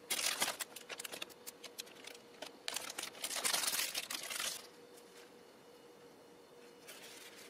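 Thin plastic film wrapping crinkling and rustling as a packaged rice-ball set is handled and its tray is pulled out of the wrapper, in irregular bursts over the first four and a half seconds. After that only a faint steady hum remains.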